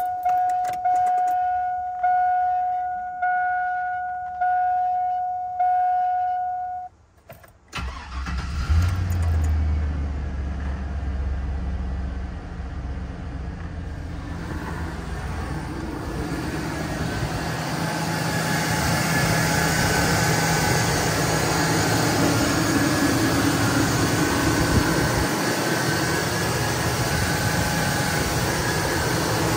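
1999 Chevrolet Silverado Z71's dashboard warning chime dinging about once a second. It stops, the starter cranks briefly and the Vortec engine catches about 8 seconds in on a cold start, then settles into a steady idle. The engine grows louder and hissier from about 14 seconds as the microphone moves out to the open engine bay.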